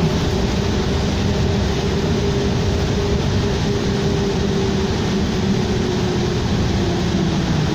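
2007 New Flyer D40LFR diesel city bus under way, heard from inside the passenger cabin: a steady engine and drivetrain rumble with a low held hum.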